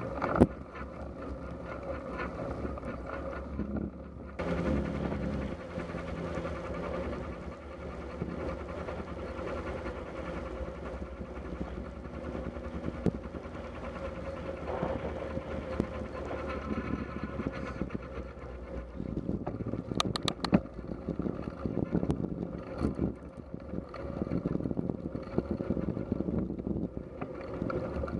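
Riding noise from a bicycle on a wet road: wind rushing over the camera microphone and the tyres running on wet tarmac. A few sharp clicks and rattles come about twenty seconds in.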